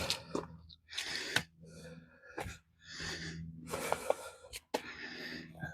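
A hiker's footsteps on a dry winter trail, irregular crunching steps with a few sharp clicks, mixed with his heavy breathing close to the microphone.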